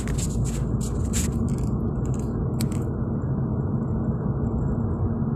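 Steady low rumble of a car's engine and tyres heard from inside the cabin while driving. There are several short scraping rustles during the first couple of seconds.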